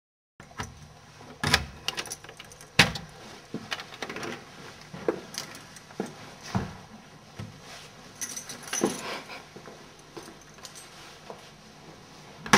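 After a moment of silence, irregular clicks, rattles and knocks of objects being handled and moved, with a louder thump at the end.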